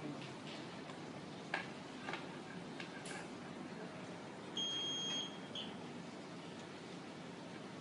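A few sharp plastic clicks and taps as the battery compartment is handled, then about halfway through a single steady, high-pitched electronic beep lasting under a second from the device once its battery is reconnected.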